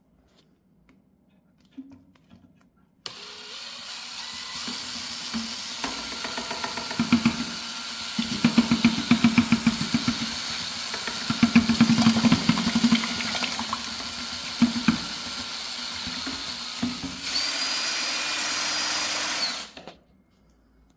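DeWalt drill spinning an improvised scrap-metal paint-mixing paddle. It starts about three seconds in and runs steadily, with bouts of fast rattling knocks through the middle. Near the end it runs louder and higher for a few seconds, then stops abruptly.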